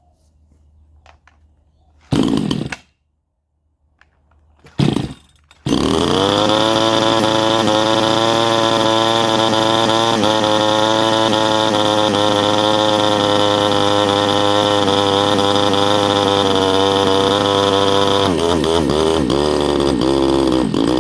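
Chinese 62cc two-stroke chainsaw engine being pull-started: two short bursts about two and five seconds in, then it catches and runs steadily at high revs, with the revs dropping and wavering near the end. It runs after its carburettor screws were opened half a turn more to give it more fuel.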